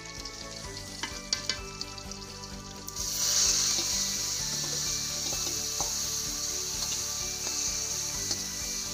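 Chopped cauliflower tipped into hot oil in an iron karai, sizzling loudly from about three seconds in as it hits the pan, with a few clinks of the metal spatula against the steel bowl.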